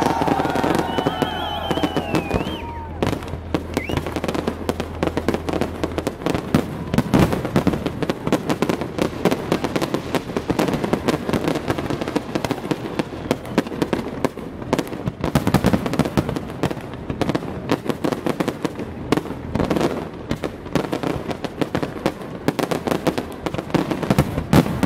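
Fireworks display going off without pause: a dense, continuous run of rapid bangs and crackling from many shells and sparks at once.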